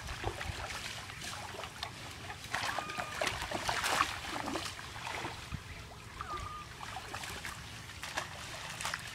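Water splashing and trickling irregularly as a large fishing net is hauled through shallow pond water, with the busiest splashing about three to four seconds in.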